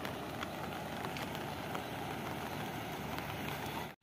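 Steady rushing of fast-flowing floodwater, an even noise without pitch, cut off by a brief silent gap just before the end.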